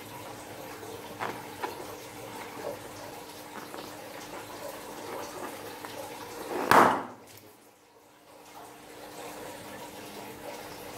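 A few small rubbery clicks as a liquid-filled balloon is handled, then about two-thirds of the way in a loud, brief gush and splash as the balloon empties its liquid into a glass dish, followed by soft sloshing of liquid.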